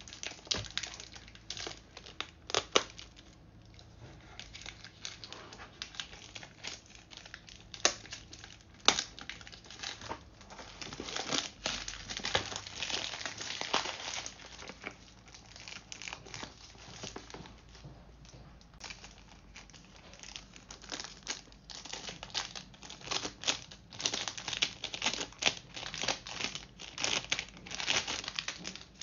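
Clear plastic shrink-wrap being torn and peeled off a cardboard box, crinkling in many irregular sharp crackles that grow busiest around the middle and again near the end.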